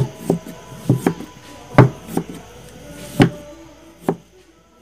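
Large kitchen knife slicing through a peeled wild yam (kloi) tuber and striking a wooden chopping block: about seven sharp, irregular chops, the loudest at the start, a little under two seconds in, and a little after three seconds in.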